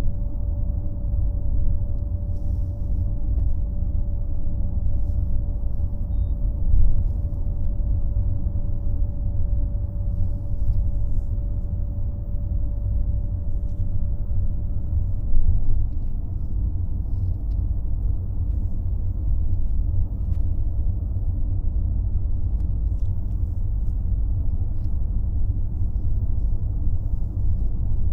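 Steady low rumble of road and engine noise heard inside a moving bus at highway speed, with a faint steady whine that stops about halfway through and a couple of brief louder swells.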